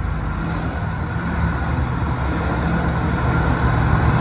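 2010 Chevrolet Corvette Z06's 7.0-litre V8 running steadily as the car drives toward the listener, with tyre and road noise, growing a little louder near the end.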